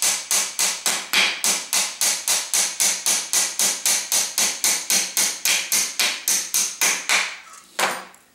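A hammer tapping lightly and quickly, about four even strikes a second, on the bent shaft of an Align AL200S milling machine power feed to drive it out of its tight housing. The run of taps stops near the end, and one last tap follows.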